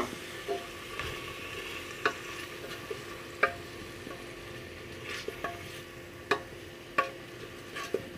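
Beef, potato and carrot being stirred in an aluminium pressure cooker over a steady sizzle of frying. The spoon knocks against the pot about eight times at uneven intervals, each knock ringing briefly off the metal.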